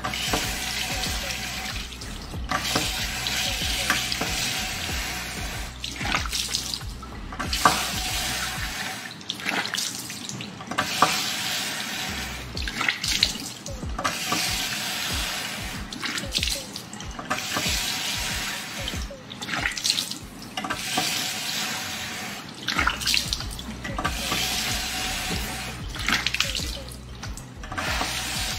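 Tap water running into a sink in short runs that keep cutting off and starting again as the faucet is worked over and over, with splashes of water between the runs.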